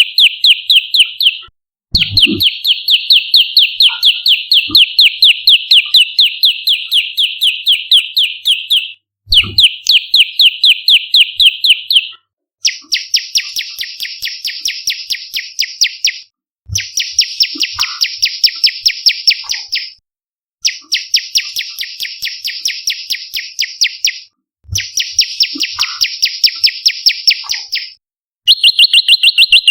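Prenjak lumut, a small songbird, calling in long rapid trills of evenly repeated sharp notes, about five a second. The calls come in several bouts of a few seconds each with short pauses between them, and the later bouts sound harsher and fuller. A faint knock marks the start of some bouts.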